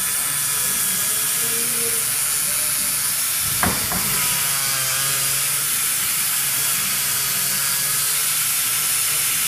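Dental contra-angle handpiece running with a steady hiss and low hum as it drives an extra-fine-grain SpaceFile strip stripping enamel between lower front teeth. One sharp click about three and a half seconds in.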